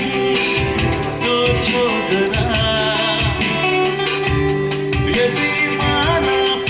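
Bollywood-style song music with a steady drum beat and guitar, an instrumental passage between sung lines.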